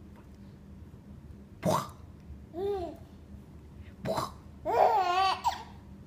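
Baby laughing in short, high-pitched squeals, twice, the second longer and wavering. Each squeal follows a short, sharp cough-like sound.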